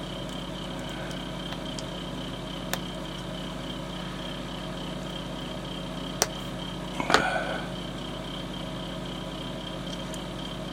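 Steady low hum with a faint high whine, broken by a few sharp clicks and a louder tap with a brief rustle about seven seconds in: small plastic model parts and hand tools being handled on the cutting mat.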